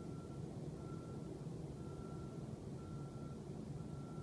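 Distant beeping at one steady pitch, about once a second, like a large truck's reversing alarm, over a low steady mechanical rumble.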